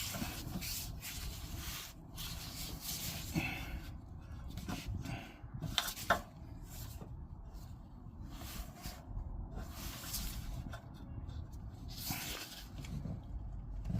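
Irregular rustling, rubbing and hissy scraping from hands working around a lowered fuel tank and its hose, with a few sharp clicks about five to six seconds in.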